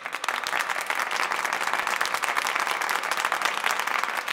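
A group of people applauding, many hands clapping densely and steadily, starting abruptly as the music stops.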